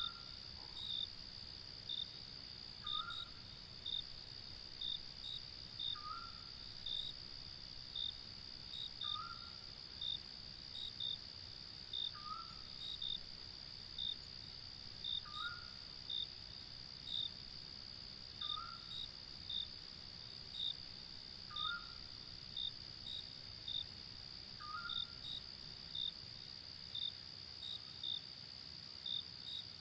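Crickets chirping at night: a steady high trill with sharper chirps about once a second over it. A short rising call repeats about every three seconds and stops near the end.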